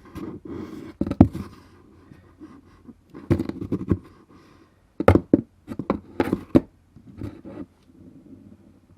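A run of separate knocks, thumps and short scrapes. The loudest come about a second in and in a cluster between about five and six and a half seconds in.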